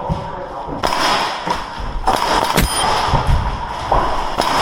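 Airsoft gunfire and BB impacts: a scattered series of sharp knocks and metallic clanks, one about halfway through followed by a short ringing ding.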